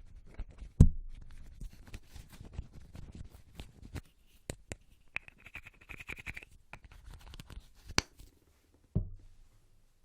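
Close-miked ASMR tapping and hand sounds: quick scratchy taps and clicks, with a heavy thump about a second in and another near the end. A short steady hiss comes in the middle.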